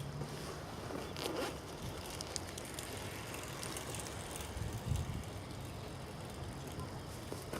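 Steady outdoor background noise with a low hum, scattered small clicks and rustles, and a dull thump about five seconds in.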